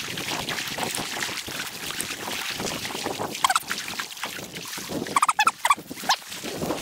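Someone wading through flooded standing corn: dry stalks and leaves rustle and scrape, with water sloshing underfoot. A short, high, duck-like call sounds about halfway through, and a quick burst of several louder calls follows a couple of seconds later.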